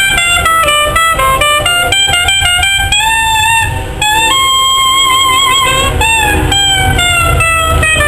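A straight-bodied reed instrument played solo as a single melody line: quick runs of notes, then a long held note with vibrato in the middle, then more notes, over a steady low rumble.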